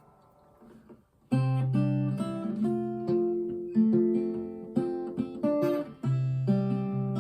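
Epiphone Zenith acoustic archtop guitar with acoustic strings being played. After a faint fading ring, playing starts about a second in: picked notes and chords over a low bass note that keeps coming back.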